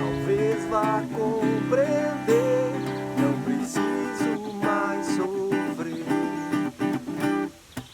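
Background music led by acoustic guitar: strummed chords with a melodic line sliding between notes. The music breaks off briefly just before the end.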